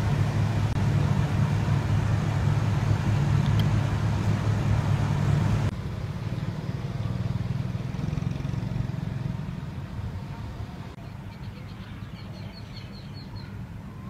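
Steady low hum of a car engine running, loud at first, then dropping suddenly to a much quieter background about halfway through. A quick series of high chirps comes near the end.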